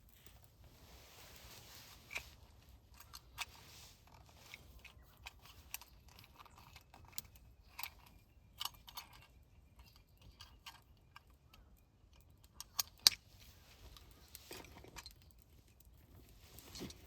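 Scattered light clicks, taps and rustles of small objects being handled, with two sharp clicks close together about three-quarters of the way through.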